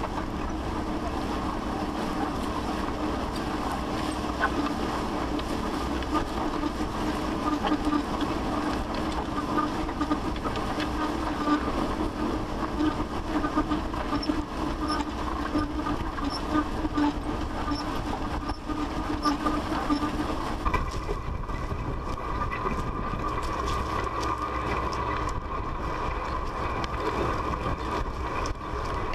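John Deere disc harrow pulled through dry corn-stalk ground: a steady grinding, rattling rush of the disc blades cutting the soil and the frame shaking. About two-thirds of the way through, the sound shifts to a steadier, higher hum.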